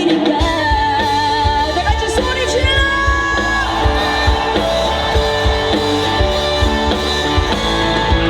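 Live band music with a female vocalist singing over a steady drum-and-bass beat, holding one long note around the middle.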